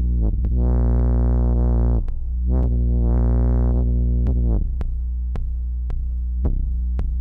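Metasonix vacuum-tube synthesizer modules (S-1000 and D-1000) run through a reverb, playing a distorted low drone. Over it come two long swells of bright, overtone-rich tone that fade in and out, then sharp clicks about twice a second.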